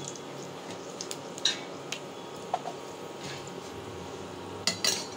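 Panch phoron seeds, a bay leaf and dried red chillies frying in a little hot oil in a kadai: a steady low sizzle with scattered pops and clicks, and a louder cluster of clicks near the end.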